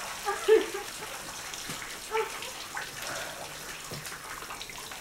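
Water dripping and trickling steadily in a flooded room, with a couple of short, wordless vocal sounds, the loudest about half a second in.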